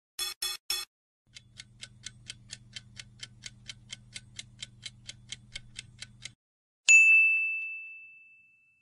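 Quiz-game sound effects: three quick blips, then a clock-like countdown ticking about four times a second over a low hum, ending in one bright ding that rings out and fades as the answer is revealed.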